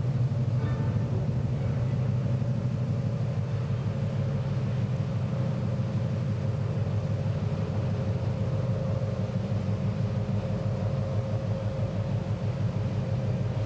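Anchor handling tug Centaurus's twin diesel engines running as the tug manoeuvres off the quay: a steady low rumble with a faint hum above it.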